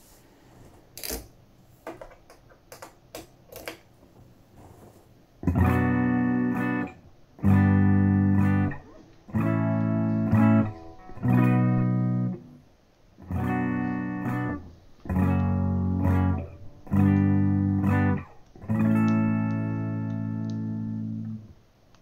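Electric guitar strummed through the original (MK1) Boss Katana Artist combo amp on its clean channel. After a few faint clicks come eight clean strummed chords, each about a second and a half long with short gaps between them. The last chord is left ringing for about two and a half seconds.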